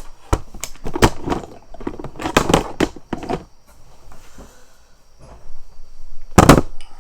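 A rapid, irregular series of sharp bangs or knocks in the first half, then a quieter stretch and one louder bang near the end.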